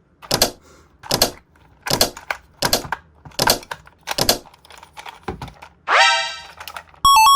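A run of sharp clicks or knocks, about one every three-quarters of a second, then a pitched tone sweeping upward near six seconds and a few bright chime-like tones near the end.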